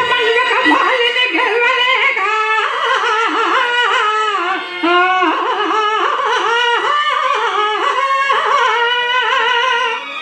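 A solo voice singing a Telugu padyam, a verse of the stage drama, through a microphone: long, ornamented notes that bend up and down, with one short break for breath a little under halfway through.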